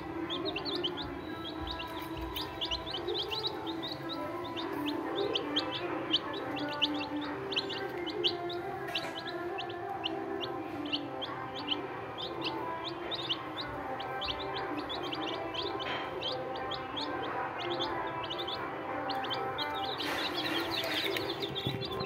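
A group of young chicks peeping continuously: many short, high cheeps a second, each falling in pitch.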